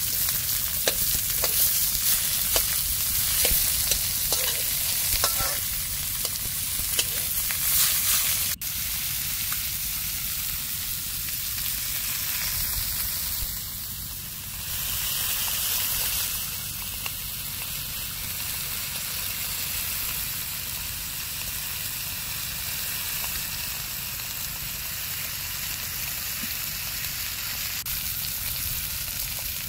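Red snapper sizzling in hot oil in a metal wok, a steady sizzle. For the first eight seconds or so, metal tongs tap and scrape against the pan as the fish is turned.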